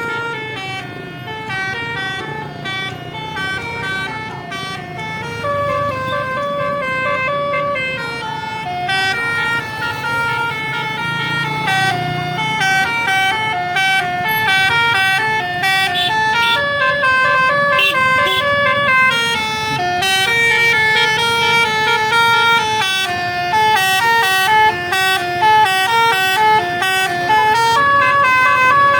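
A Basuri 'telolet' musical air horn on a tour bus plays a long tune of short, stepping notes over the low running of the bus engine. It grows louder toward the end.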